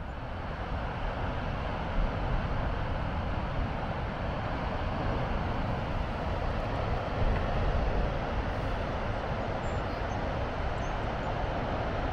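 Wind blowing on the microphone: a steady rushing noise with an uneven low rumble, louder from the start.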